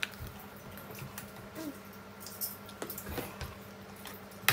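Scattered light clicks and taps of tableware at a meal, with one sharper click near the end, over a faint steady hum.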